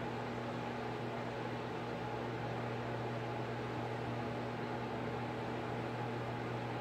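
Steady machine hum: a low drone under a constant hiss.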